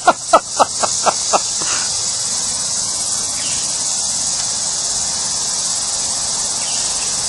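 Steady, high-pitched buzz of an insect chorus. In the first second and a half it is topped by a quick run of about six loud, falling notes.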